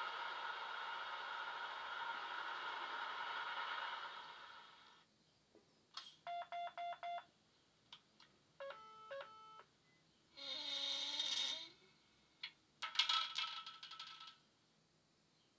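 Model Stadler Euro Dual Class 159 locomotive's ESU LokSound sound decoder, heard through the model's small onboard speakers, playing its electric-mode start-up sequence. A steady hum fades away over the first few seconds. Then come a quick run of electronic beeps, a chord of beeping tones, a burst of hiss, a few clicks, and near the end a second hiss with rattling clicks.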